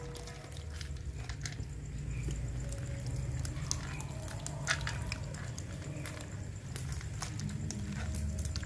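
Live loaches and gobies being handled in a metal basin: wet squelching and small scattered clicks as a hand sorts through the wriggling fish, over a low steady hum.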